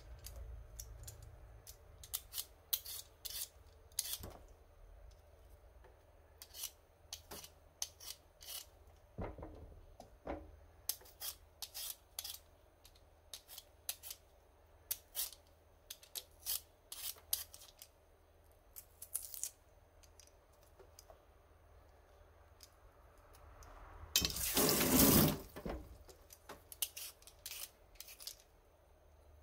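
Hand vegetable peeler scraping over raw potato skin in short, irregular strokes, shaving off the dirty patches. About 24 seconds in, a louder rush of noise lasts about a second and a half.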